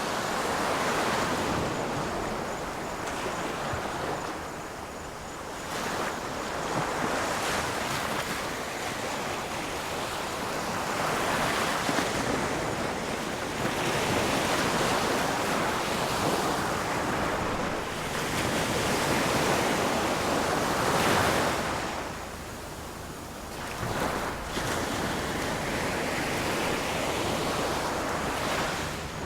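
Ocean waves breaking on a shore, the surf swelling and receding every few seconds.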